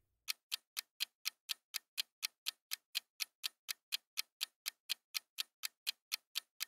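Clock-style ticking sound effect of a quiz countdown timer, even ticks about four a second, counting down the time to guess.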